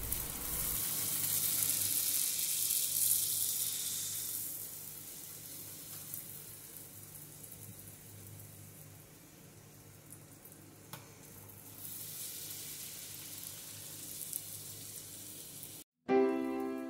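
Luchi (puffed wheat flatbread) deep-frying in hot oil in a small kadai. The oil sizzles loudly as the raw dough goes in, dies down to a quieter sizzle, then picks up again a little. Piano music comes in just before the end.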